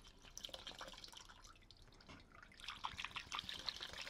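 Kerosene dripping out of the bottom of a motorcycle frame's oil tank into a container below, as the tank is flushed. The drips are faint and irregular, and come quicker about two and a half seconds in.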